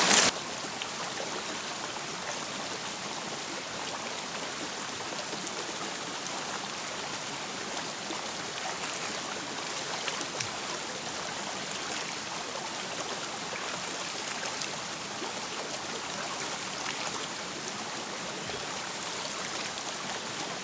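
Shallow rocky stream flowing steadily over stones, louder for a moment at the start. A few brief splashes come about halfway through as hands scoop water from it.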